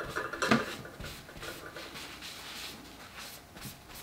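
Quiet rubbing and scraping with small clicks as jewelry is handled on a work surface, with one slightly louder knock about half a second in.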